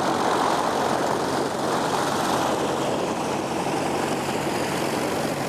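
Light propeller aircraft's piston engine running steadily at low power, an even drone with a low hum under it.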